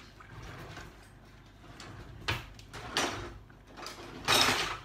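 A few short scraping, rustling kitchen-handling noises, with the loudest and longest near the end.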